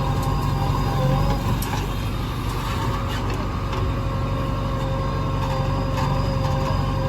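Heavy diesel engine running steadily under load, with a steady whine above the engine note and a few faint clicks.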